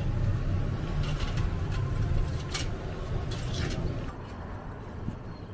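Battered bananas deep-frying in a large wok of oil: a sizzling hiss with a few sharp pops over a low rumble. The sound drops away about four seconds in.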